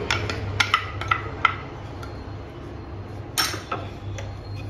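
A wooden spatula taps and scrapes chopped onion out of a glass bowl into a nonstick frying pan: a quick run of sharp clicks in the first second and a half, then one louder knock about three and a half seconds in.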